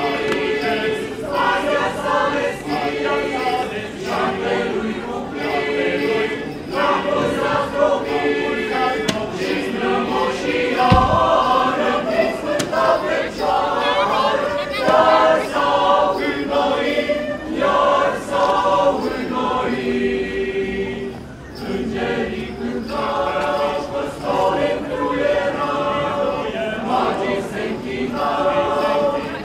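Choir singing a Romanian Christmas carol (colind), phrase after phrase with short breaths between, with a brief low thump about a third of the way through.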